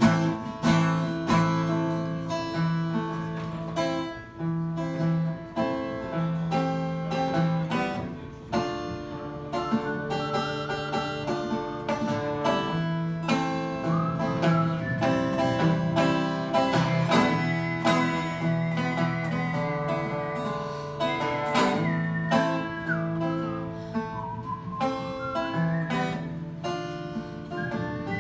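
Acoustic guitar picked in an instrumental break of a country song, with no singing. A higher, wavering melody line plays above the guitar from about ten seconds in.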